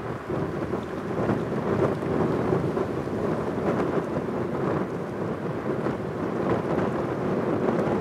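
Piper PA-28-181 Archer II's four-cylinder Lycoming engine and propeller at climb power, heard as a steady rumbling drone as the plane climbs away into the distance.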